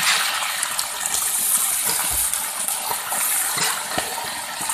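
Chunks of raw yak meat sizzling in hot oil and fried onions in a large aluminium pot, a steady hiss, with a few short knocks of the serving spoon.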